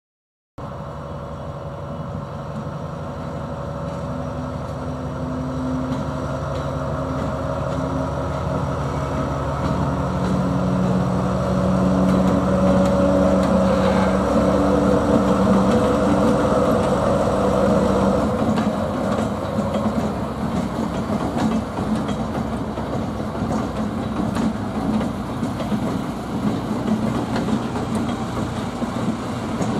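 Convoy of Colas Rail Freight Class 70 diesel locomotives, with GE PowerHaul V16 engines, running past as light engines, their engines and wheels on the track growing louder as they come by and peaking about halfway through.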